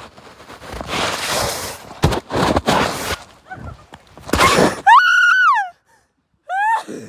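A person lets out a loud, high, held scream of about a second that slides down at its end, then a shorter rising cry near the end, after several seconds of rough rustling noise.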